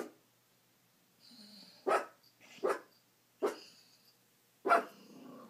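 A dog barking: five short, sharp barks spaced about a second apart.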